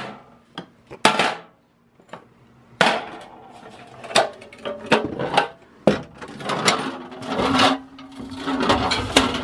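Loose metal parts of an old hand drill being picked up off a wooden workbench and set down in a sheet-metal tray: an irregular run of clinks, knocks and short scrapes.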